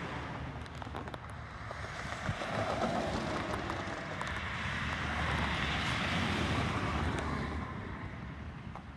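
Road traffic passing, a rushing noise with a low rumble that swells over the first few seconds and fades after about seven seconds.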